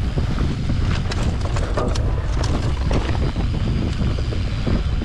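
Wind buffeting the microphone over the rumble of a mountain bike riding a rough dirt trail, with frequent short clicks and rattles from the bike.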